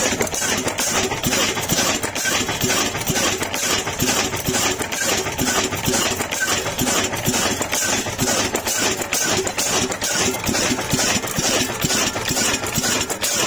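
Old Ruston Hornsby diesel engine running steadily, with a continuous fast mechanical clatter.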